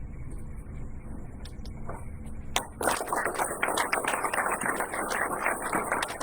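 Audience applauding, beginning about three seconds in, over a low steady hum in the hall.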